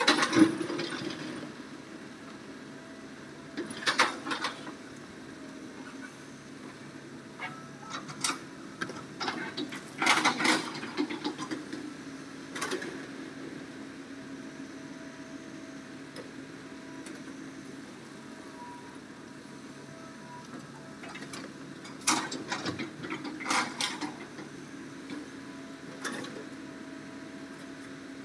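Hitachi hydraulic excavator's diesel engine running steadily, with several short bursts of rocks scraping and clattering as the bucket digs into stony ground. The loudest bursts come about a third of the way in and again a little past two-thirds of the way through.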